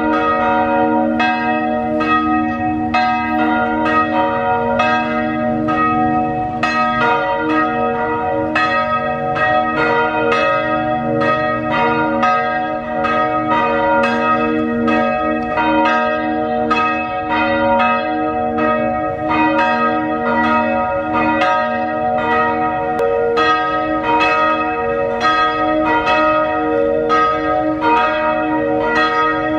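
Church bells ringing the evening bell: steady repeated strikes, about two a second, each bell tone ringing on under the next.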